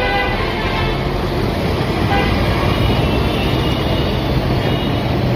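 Heavy city street traffic at close range: vehicle engines running alongside, with a low steady engine hum from about halfway in. A vehicle horn toots briefly at the start and again about two seconds in.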